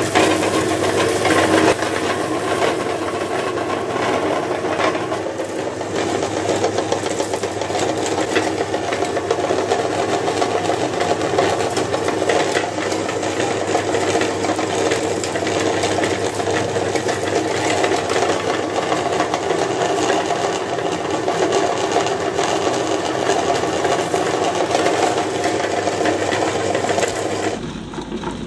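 Electric meat grinder running steadily, its motor humming while the turning auger crushes sugar-coated candies with a rapid crackle. The sound drops in level and turns duller about a second before the end.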